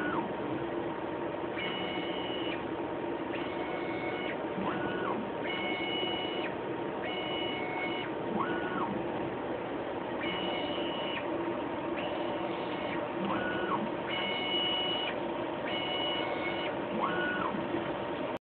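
Hudson SOLO pipetting robot running a 12-channel dispense cycle: its axis motors whine in a repeating pattern of pairs of high steady tones every second or two, with a shorter rising-then-falling whine about every four seconds, over a steady machine hum. The sound cuts off abruptly near the end.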